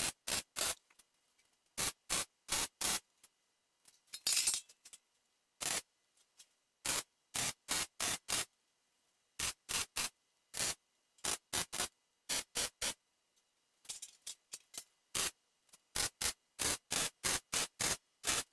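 A MIG welder laying short tack welds on thin sheet steel: dozens of brief bursts of arc crackle, each a fraction of a second long, with silence between them. The welds are closing cracks in a lawn tractor's steel seat pan.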